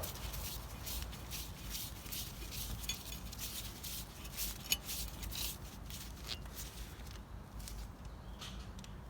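Faint scattered clicks and light taps of hand tools and metal brake parts being handled, with one sharper tick about halfway through and a quick run of clicks near the end.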